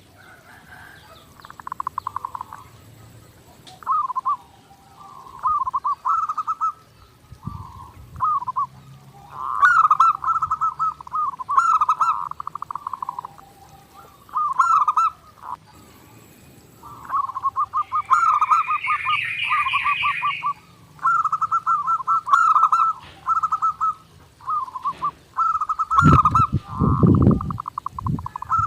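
Zebra dove (perkutut) cooing in repeated short phrases of rapid staccato notes, with brief pauses between phrases. Midway a higher trilling call of another bird joins for about two seconds, faint high chirps of small birds sound in the background, and a few low thumps come near the end.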